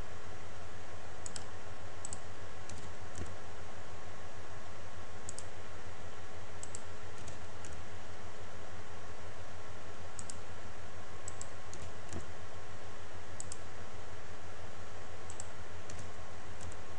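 Scattered light clicks of a computer mouse and keyboard, some in quick pairs, over a steady low electrical hum.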